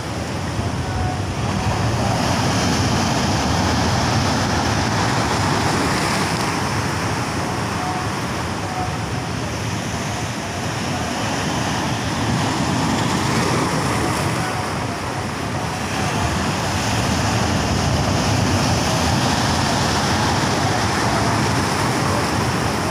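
Sea surf breaking and washing over shore rocks: a steady rush of water that swells and eases every several seconds as the waves come in.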